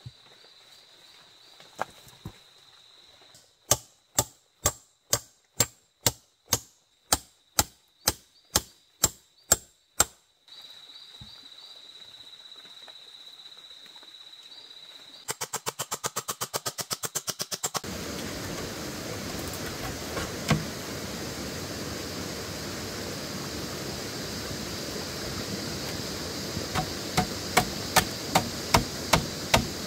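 Sharp striking blows, evenly spaced at about two a second, in a run of some seven seconds. Later comes a quick burst of rapid strikes, then a steady rushing noise with a few more blows near the end.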